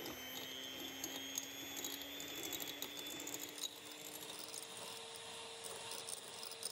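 Handheld milk frother whirring steadily as it whips egg white in a glass bowl, its pitch creeping slightly up, with its wire whisk ticking and rattling against the glass. The egg white is being beaten toward meringue.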